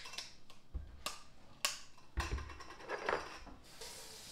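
Kitchen handling sounds: a few sharp clicks and two dull knocks on a countertop as a glass jelly jar and its lid are put down, with a short rustle about three seconds in.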